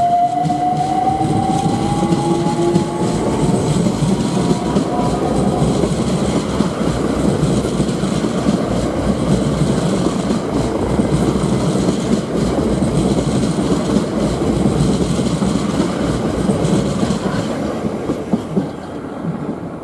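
Southeastern electric multiple-unit train pulling out of the station, its traction motors whining up in pitch as it accelerates over the first few seconds. Then comes a steady rumble of wheels on rail with clickety-clack over the joints as the carriages go by, which fades near the end as the last carriage clears.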